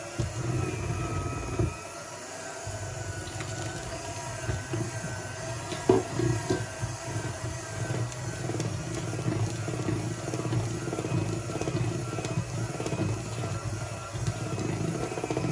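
Electric hand mixer running steadily with its beaters in thick cake batter, a motor whine that wavers slightly in pitch. A single sharp knock about six seconds in.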